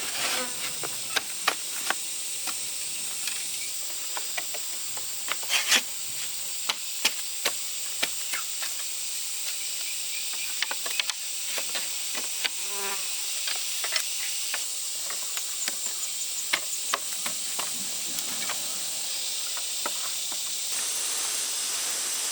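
Steady high buzz of insects, with irregular light knocks and clicks of chopping scattered throughout.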